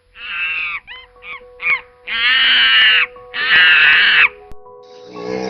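A series of loud, harsh animal calls: a first cry, three short chirps, then two long drawn-out calls. Music comes in near the end.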